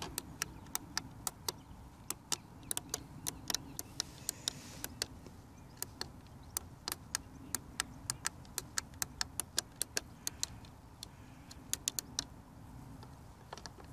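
Hubsan X4 Pro (H109S) transmitter's buttons clicking under the thumbs, many sharp clicks in irregular runs of several a second, with a short lull about ten seconds in, while the transmitter sits stuck in stick-calibration mode.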